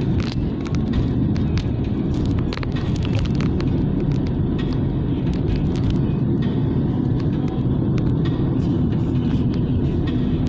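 Steady low rumble of a Hyundai's road and engine noise heard inside the cabin at highway speed in traffic, with scattered sharp clicks during the first few seconds.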